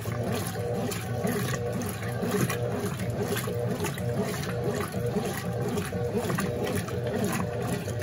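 Consul Super Cargo CWL10A top-loading washing machine agitating a load in the rinse water: a steady motor and gearbox hum under continuous sloshing and splashing as the agitator churns the clothes.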